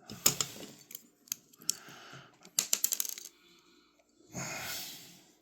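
Small metal folding-knife parts and tools clicking and clinking against each other and the work surface as the knife is handled for disassembly, with a quick run of clicks a little before the middle. A short rustle follows near the end.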